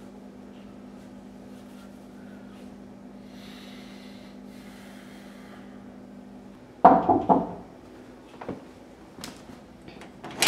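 A steady low hum that cuts out about seven seconds in, followed by a quick run of loud knocks on a wooden door, then a few faint clicks and a sharper knock near the end.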